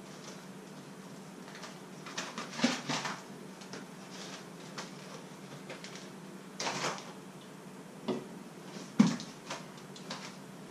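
Kitchen handling noises: short bursts of rustling packaging and light knocks of things being picked up and set down, about five times, over a steady low hum.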